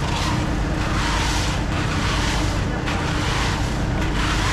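A steady low mechanical hum under busy crowd noise, with a rustling swell about every half second as caramel popcorn is scooped and stirred in a steel tray.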